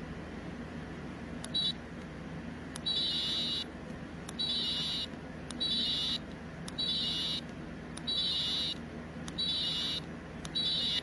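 Electronic sound chip of a unicorn keychain toy giving a series of high-pitched beeps, about seven of them roughly a second apart, each starting with a sharp click.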